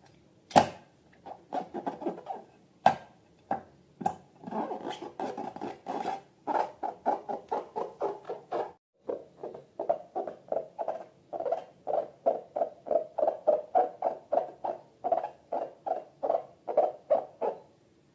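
Slime being squeezed and kneaded by hand: a fast run of short, sticky squelches, about three to four a second, with two sharp clicks in the first three seconds.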